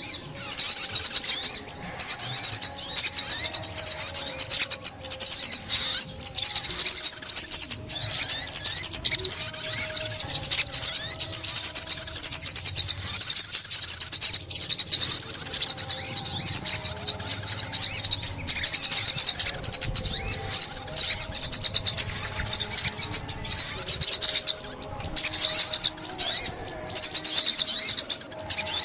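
Ốc mít sunbird song: a continuous stream of rapid, high, thin twittering chirps and trills with no pauses.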